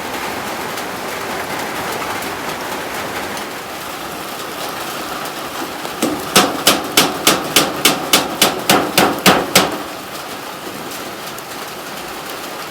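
Heavy rain falling steadily, and about halfway through a hammer strikes about a dozen quick, evenly spaced blows, three to four a second, then stops.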